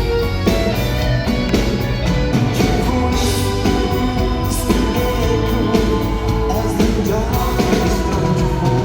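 Live pop-rock band playing with a male lead singer, drums hitting steadily under held vocal notes, as heard from the audience through a phone microphone.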